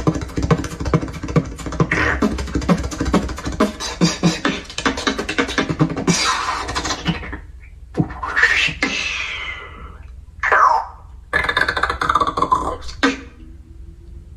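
Beatboxing: a fast beat of drum-like clicks over a low bass for about the first six seconds, then a run of sweeping, gliding vocal effects with short gaps between them.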